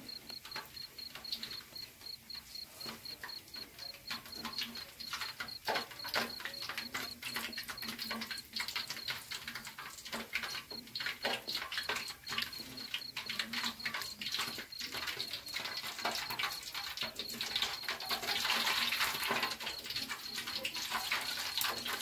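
Banana fritters deep-frying in a wok of hot oil: a busy crackling sizzle with the occasional knock of a spatula on the wok, the sizzle growing fuller near the end. A cricket chirps in a steady, evenly pulsed trill throughout.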